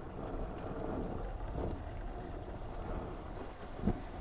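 Wind buffeting a helmet-camera microphone, mixed with water rushing past an RS600FF sailing dinghy under way. A single sharp knock sounds near the end.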